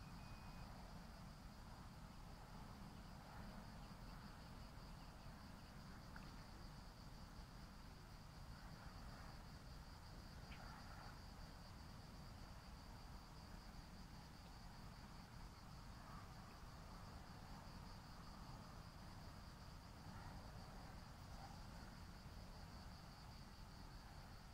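Faint, steady high trilling of crickets, over a low rumble.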